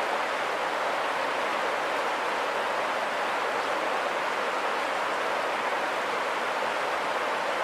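River water rushing steadily over rocks in a shallow riffle, an even, unbroken hiss.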